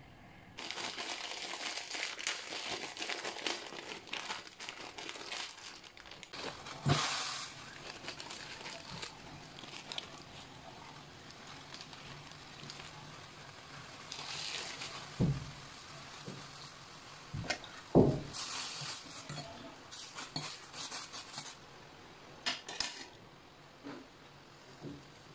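Instant-noodle cooking at a gas stove: a plastic noodle packet crinkling and rustling, with clinks of a stainless steel pot and utensils and several sharp knocks, the loudest about two-thirds of the way through.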